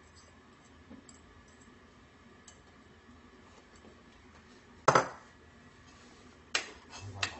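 A sharp clink of dishes about five seconds in, then two lighter clinks near the end as a spoon stirs soup in a metal saucepan.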